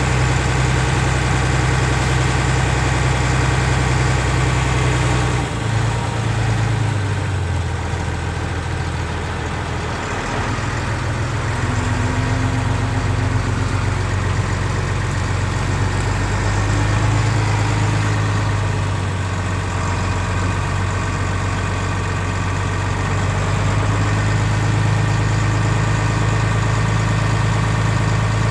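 Truck's diesel engine running at low revs, heard inside the cab while it crawls in slow traffic. The engine note shifts about five seconds in and settles back to a steady tone by about ten seconds.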